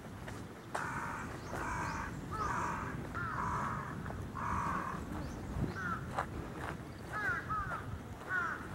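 A crow cawing, a run of about five harsh caws of about half a second each, followed in the second half by a few short sweeping chirps.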